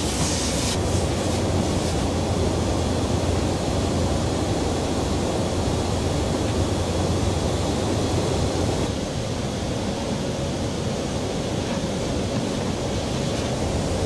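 Steady roar of aircraft engines and rushing air in flight, with a low hum beneath it, easing slightly about nine seconds in.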